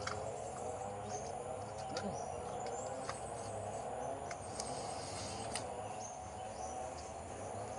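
Steady drone of insects, with faint bird chirps and a few sharp clicks scattered through it.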